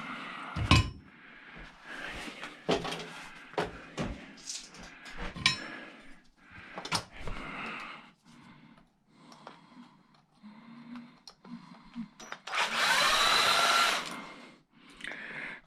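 Metal parts of an old battery charger knocking and clattering as they are handled, then a power drill running for about a second and a half near the end, its motor pitch rising and then falling.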